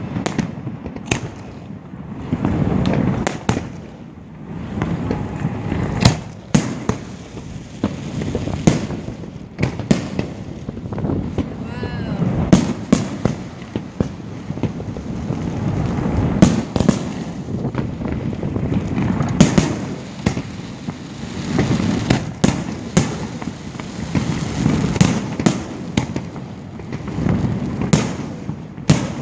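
Fireworks display: aerial shells bursting in a steady string of sharp bangs, about one every second or so, over a continuous low rumble.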